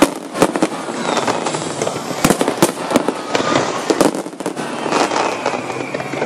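Fireworks display: many sharp bangs and crackles of bursting shells, coming close together and irregularly, with a brief lull about four seconds in.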